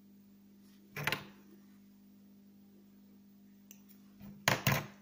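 Handling noises from fishing tackle on a table: a short sharp click about a second in, then two louder knocks in quick succession near the end, over a faint steady hum.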